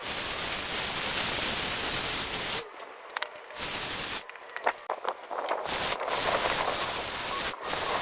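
Battery-powered lawn tool running with a steady rushing hiss, cutting out briefly three times.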